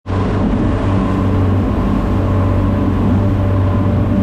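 Fishing boat under way at speed: its engine runs with a steady drone, mixed with the rush of water from the churning wake.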